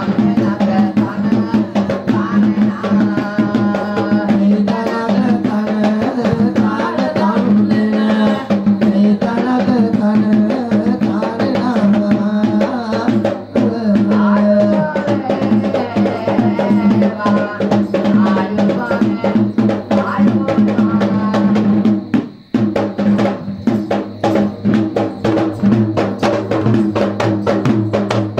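Sri Lankan low-country barrel drums (yak bera) beaten in a fast, dense rhythm, over a steady held tone and a melodic line, accompanying a Pattini dance.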